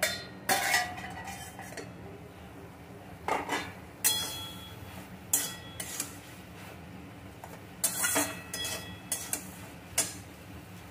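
A steel plate lid is lifted off an aluminium wok, then a steel spatula knocks and scrapes against the wok while stirring okra and potato: about nine sharp metallic clanks with a short ring, spread across the ten seconds.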